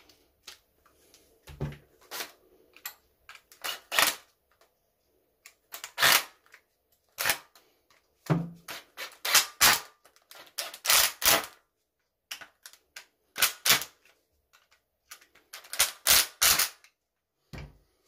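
Cordless impact driver run in short trigger bursts, driving and seating screws into a power tool's plastic housing. The bursts are irregular, mostly single or in quick clusters of two or three.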